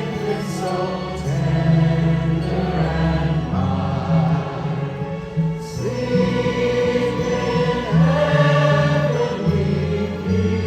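Choir singing a Christmas piece with orchestral accompaniment, over sustained low bass notes that shift every second or so.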